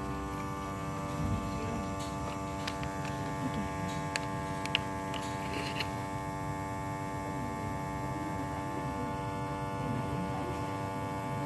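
Vacuum sealer's pump running with a steady electric hum while it draws the air out of a bag, with a few light clicks and rustles of handling.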